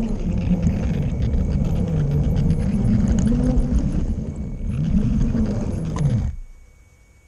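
LEGO train's electric motor running under load, heard from on board, its whine rising and falling in pitch as the speed changes, with clicks from the wheels on the plastic track. The sound cuts off suddenly about six seconds in as the train stops.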